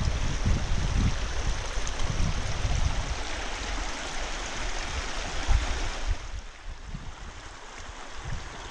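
A shallow mountain stream rushing over stones and gravel, a steady wash of water noise with irregular low rumbles beneath. About six seconds in, the water sound drops noticeably in level.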